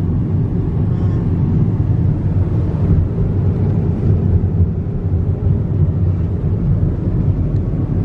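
Car driving along a road: a steady low rumble of road and engine noise.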